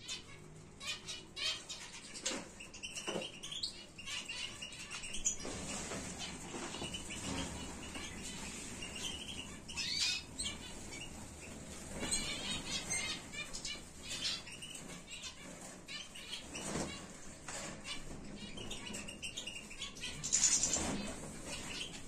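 Small cage birds, canaries and goldfinches, flying about a flight room: repeated fluttering of wings as they take off and land, mixed with short high chirps and twitters.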